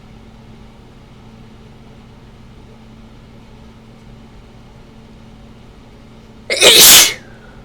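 A single loud, sharp human sneeze about six and a half seconds in, lasting around half a second, brought on by ragweed pollen and chhinkni sneezing powder. Before it there is only a steady low hum.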